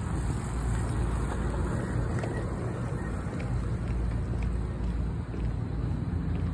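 Wind buffeting a phone's microphone outdoors, a steady low rumble, with faint ticks about once a second.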